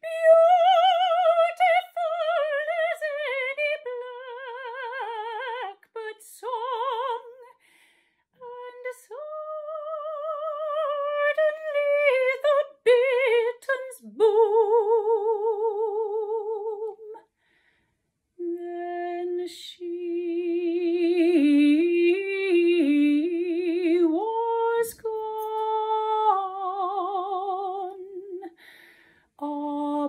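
Solo female voice singing unaccompanied in a classical style, with wide vibrato on held notes and quick runs up and down, broken by two short pauses.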